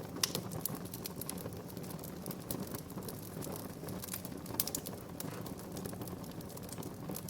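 Wood fire in a fireplace crackling, with frequent irregular sharp pops and snaps over a low steady rush of the flames.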